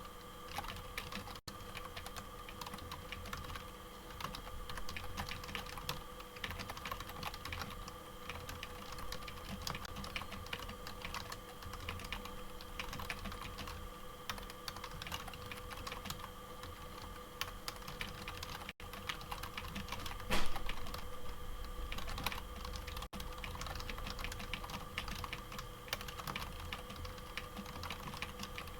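Fast, continuous typing on a wireless membrane keyboard: a dense stream of soft key presses, with one louder key strike about two-thirds of the way through. A faint steady hum runs underneath.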